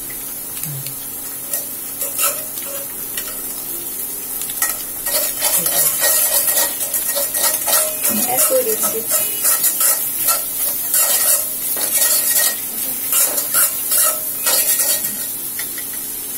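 Metal spatula stirring and scraping egg and shredded vegetables around a metal wok over a steady frying sizzle. The scraping and clinking get busier and louder from about five seconds in.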